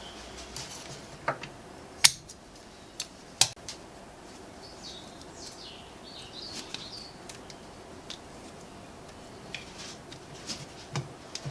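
A few sharp clicks and knocks, the loudest about two seconds and three and a half seconds in, with birds chirping faintly in the background.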